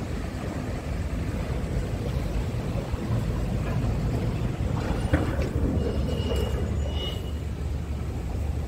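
Scania P280 truck's five-cylinder diesel engine idling, a steady low rumble. A click about five seconds in and two short high tones a little after six and seven seconds.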